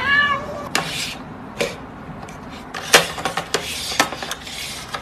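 A domestic cat gives one short meow at the very start, rising then falling in pitch. It is followed by several sharp clicks and taps spread through the rest of the moment.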